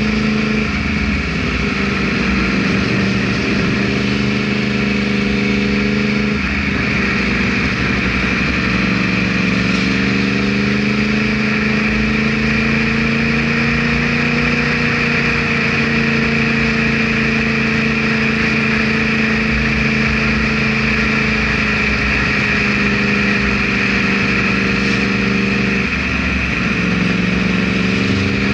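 Yamaha R1 sport bike's inline-four engine running steadily while being ridden. Its pitch drifts gently up and down, with brief dips about a second in, around six seconds in and near the end.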